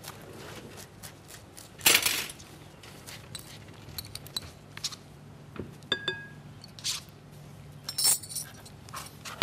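Kitchen clatter: utensils clinking against a glass mixing bowl and small dishes, with knife taps on a cutting board. A short scraping rasp about two seconds in is the loudest sound, and two clear ringing clinks come around the middle.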